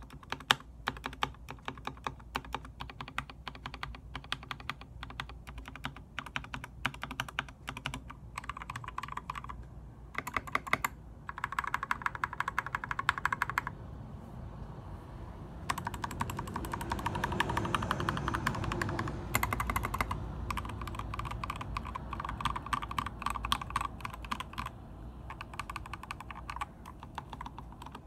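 Typing on a GK64X mechanical keyboard fitted with lubed and filmed Gateron Milky Yellow linear switches: a continuous run of keystroke clacks, with fast rapid-fire bursts, densest and loudest a little past halfway.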